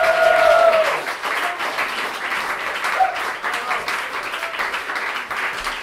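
Audience applauding after a jazz piano trio's number, with a held vocal whoop that stops about a second in and another short cheer about three seconds in.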